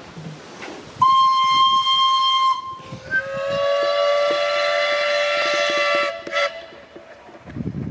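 Steam whistle of the narrow-gauge Hunslet quarry saddle-tank locomotive Maid Marian, sounding two blasts. The first is shorter and higher, starting about a second in; the second is longer and lower.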